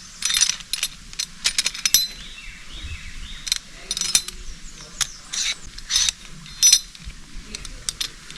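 Metal rappelling hardware, carabiners and a rappel device, clinking and clicking while a climber clips himself onto the rope. About a dozen sharp metallic clinks come at irregular intervals.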